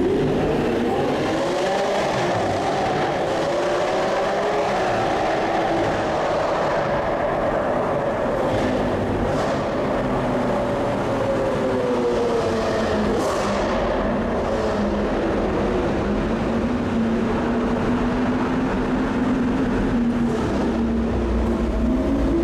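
Lamborghini Aventador SV's naturally aspirated V12 engine pulling on the move, its pitch rising and falling with throttle and gear changes. It settles to a steadier note for several seconds past the middle, then climbs again near the end.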